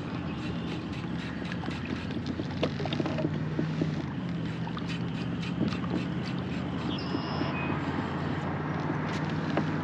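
Wind buffeting the microphone and water lapping at a kayak's hull, with scattered small ticks and a steady low hum underneath.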